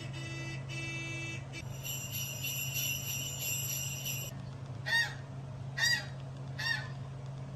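Sound effects played one after another. First a pulsing high tone, then about two seconds of steady jingling bells, then three loud, short honks about a second apart.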